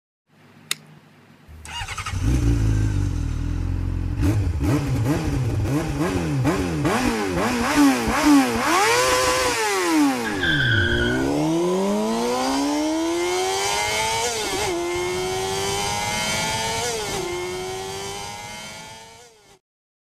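Engine sound effect: a high-revving engine starts and is blipped up and down repeatedly, then accelerates through the gears, its pitch climbing and dropping at two gear changes, before fading out.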